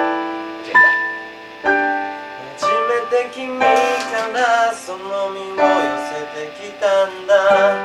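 A small band playing a slow pop ballad: digital piano chords struck about once a second, over electric bass and an electronic drum kit played through an amplifier.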